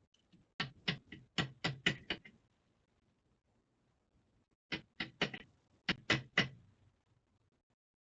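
Two quick runs of sharp knocks, about seven in each: hard taps during the handling of a partly dismantled pin-tumbler lock. The second run comes about two seconds after the first.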